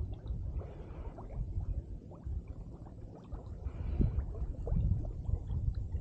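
River water gurgling and splashing close to a microphone held at the water's surface, with small splashes scattered through and a low rumble underneath.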